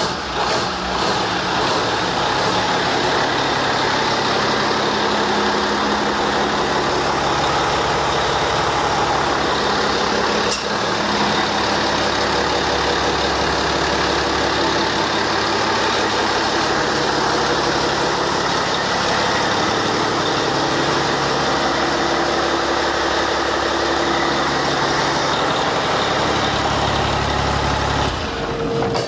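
1999 Cummins ISM inline-six diesel engine running at a steady idle on a test stand, shortly after start-up.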